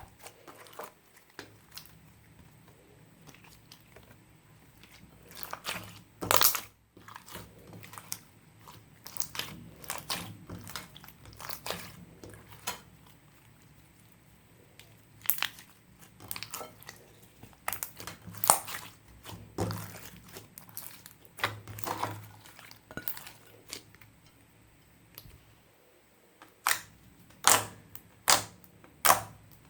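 Clear slime with makeup and glitter mixed in, squished and kneaded by hand, giving irregular sharp pops and crackles, with a quieter stretch around the middle.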